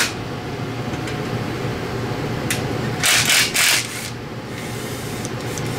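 Hand tools working on the suspension bolts and nut: a few short bursts of scraping and rattling metal about two and a half to four seconds in, over a steady background hum.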